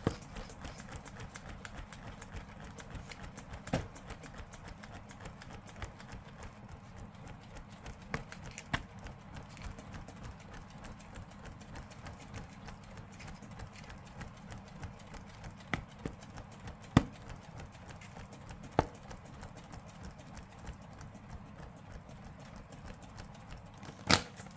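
A pink folding hand fan waved rapidly close to the microphone, giving a fast, steady flapping with a few sharper clicks scattered through, as a face is fanned dry after setting spray.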